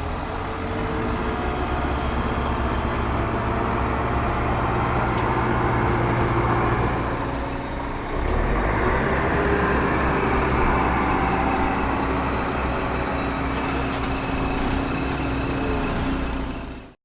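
Engine running with a steady low rumble; the sound dips and changes about eight seconds in, then carries on and cuts off suddenly near the end.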